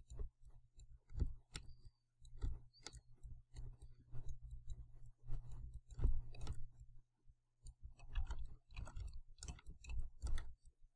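Scattered clicks of a computer mouse, some in quick runs, over a low steady hum that stops near the end.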